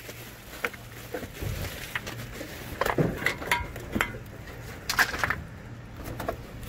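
Irregular knocks, taps and scuffs of cardboard boxes and salvaged objects being handled, about one a second, over a faint low hum.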